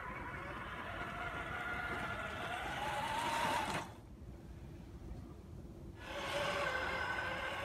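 Electric motor and drivetrain whine of a Traxxas TRX-4 Bronco RC crawler driving, rising in pitch about three seconds in. It cuts out for about two seconds near the middle and then returns, over a low rumble.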